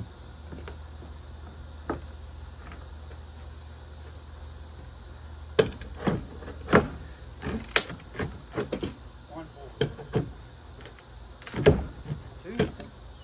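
Old wooden deck boards being levered up with a steel deck board remover bar. From about five and a half seconds in there is a series of sharp knocks and cracks, with the loudest near the end. Crickets chirp steadily throughout.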